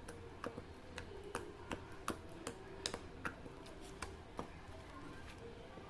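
Faint, irregular soft clicks, a few a second, from slime being handled and pushed into a plastic bottle.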